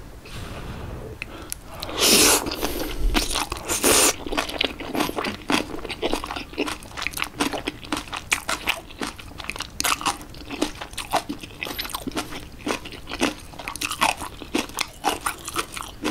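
Close-miked eating: crunchy bites of napa cabbage kimchi taken with jjapagetti noodles. Two loud crunches come about two and four seconds in, then steady chewing with a run of small wet crunches and clicks.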